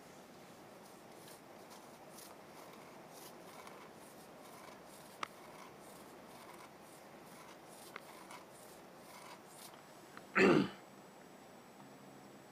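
Heavy rain falling steadily, a soft even hiss with a couple of faint ticks. About ten and a half seconds in, a brief, much louder burst cuts in.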